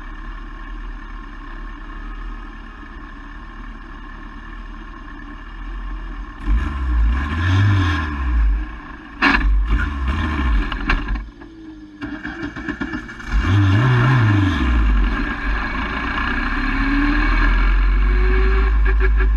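Race car engine heard from the open cockpit. It starts as a steady rush; from about six seconds in the revs rise and fall several times, with a sharp bang about nine seconds in. Near the end it settles into a louder, steady run.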